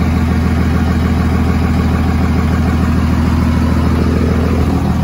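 A 2nd-gen Cummins 24-valve diesel, a 5.9 L inline-six, idling steadily with a fast, even low pulsing.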